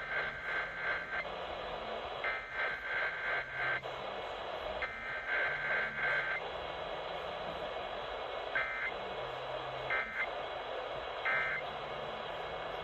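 Emergency Alert System SAME header data bursts over AM radio: three long, screechy digital tone bursts about a second and a half each, then three short bursts, with hissing static between them.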